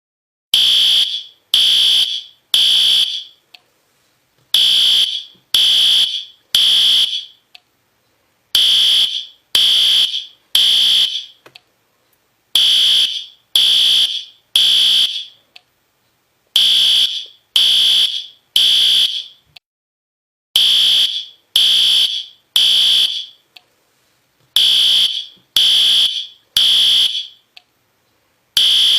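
System Sensor P2R fire alarm horn strobe sounding the temporal-three evacuation signal: a high beeping horn in groups of three short beeps, then a pause, repeating about every four seconds.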